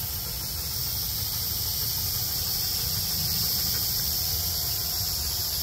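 Small toy quadcopter drone hovering, its propellers and motors making a steady high-pitched buzz.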